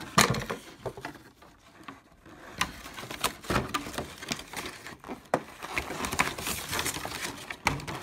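Stiff clear plastic clamshell packaging being handled and pulled apart by hand: scattered crackles, clicks and rattles of the plastic, sparse at first and busier after about two and a half seconds.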